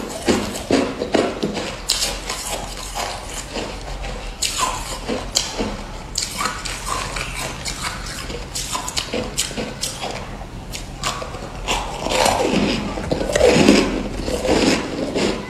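Close-up chewing of frosty white ice balls: a fast, irregular run of crisp crunches and cracks as the ice breaks between the teeth, loudest a couple of seconds before the end.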